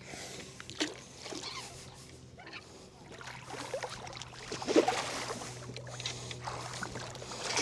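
Scattered splashes and knocks as a big bass is fought close to a fishing boat, over a steady low hum.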